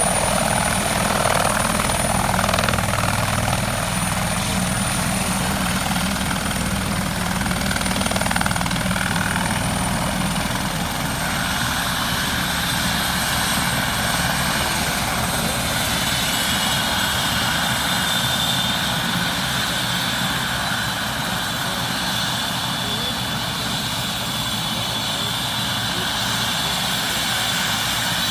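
Eurocopter EC130 helicopter running on the ground, with a steady turbine whine and the rotor turning. A high whistle drops slightly in pitch about a third of the way through.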